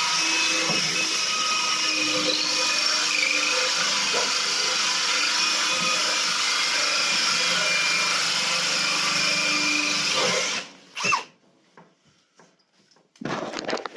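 Power drill spinning a diamond-tipped hole bit through ceramic tile dry, running steadily, then cutting off about ten seconds in.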